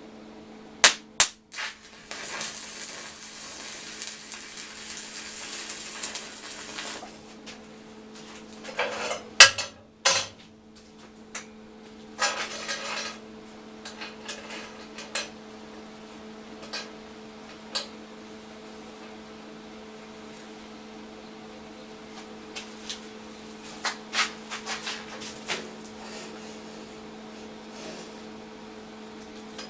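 Stick (arc) welding: a welding arc crackles and hisses for about five seconds, then again briefly about twelve seconds in. Between welds, sharp metal knocks and clinks come from steel parts handled on a steel table, over a steady hum.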